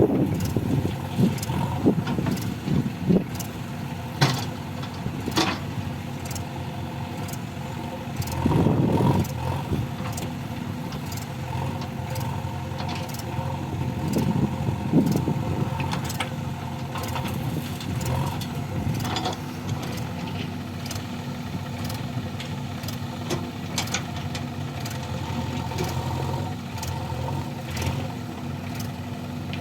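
Diesel engines of earth-moving machinery running steadily, with scattered sharp knocks. The engines swell louder briefly about a third of the way in and again around the middle.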